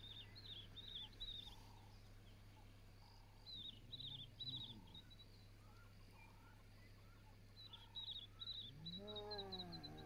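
Faint birdsong: groups of short, high, down-sweeping chirps come three times over a low steady hum. Near the end a single low call rises and falls in pitch for about a second.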